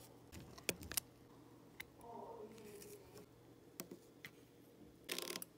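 Small sharp clicks of metal tweezers tapping and setting plastic diamond-painting drills on the canvas: two louder clicks about a second in, then a few fainter ones.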